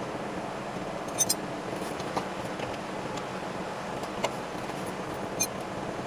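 A few short, sharp light clicks over a steady low hum.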